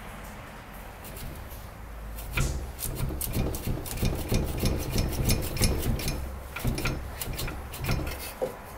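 MacPherson strut being rocked back and forth by hand in the steering knuckle's split clamp: irregular metal knocking, clicking and scraping that starts about two and a half seconds in and goes on until near the end.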